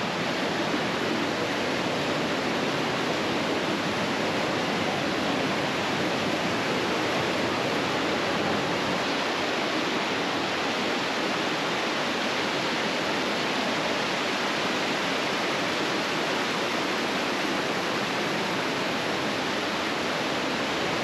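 Flume Brook rushing steadily over rocks and small cascades.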